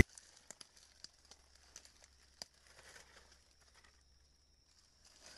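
Faint, scattered crackles and rustling of footsteps and brushing through dry leaf litter and ferns.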